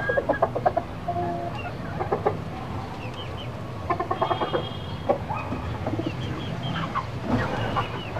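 Chickens clucking in several short runs of quick clucks, about a second long each, over a steady low hum.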